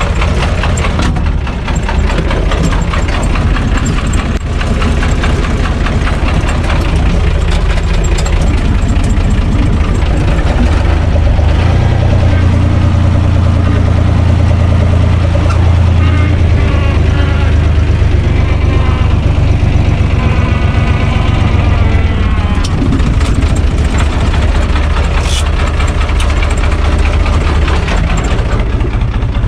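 UTB 445 DT 4x4 tractor's diesel engine running steadily, heard from inside its cab. It gets louder and deeper from about a third of the way in and eases back again about three quarters of the way through.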